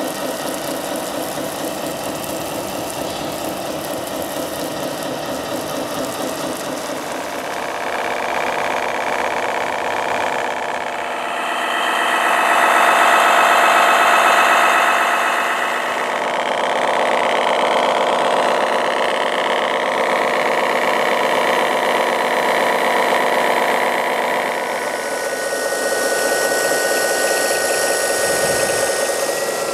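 An engine idling steadily that revs up for a few seconds in the middle, then settles back. A steady high whine comes in near the end.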